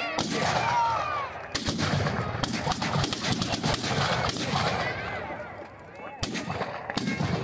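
Firecrackers packed inside a burning Dussehra Ravan effigy going off in a rapid string of bangs, densest through the middle, then two separate sharp bangs near the end. People's voices call out over them.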